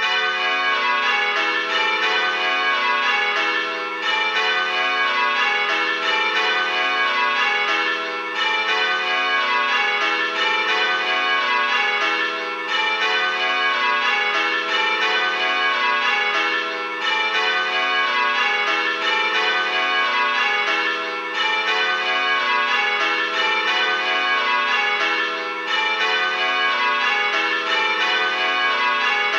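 Six tower bells rung in a steady, even change-ringing rhythm, played by a bell-ringing simulator. A brief pause comes about every four seconds, the handstroke gap between whole pulls.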